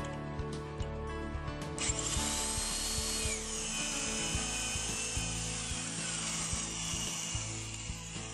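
Electric drill boring into the wooden door edge through the mortising jig's drill bushing. It starts about two seconds in, and its whine drops in pitch as the bit bites into the wood.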